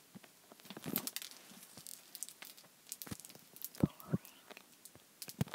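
Green slime being stretched and squeezed by hand for ASMR, giving faint sticky crackles and small clicks. A few soft thumps come about three to four seconds in and again near the end.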